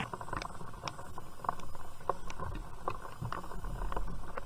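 Raindrops ticking irregularly on close surfaces around a kayak, over a low steady rumble.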